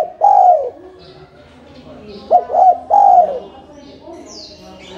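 Spotted dove cooing: the long falling last note of one phrase right at the start, then a full phrase about two seconds in, with two short coos followed by a longer falling coo.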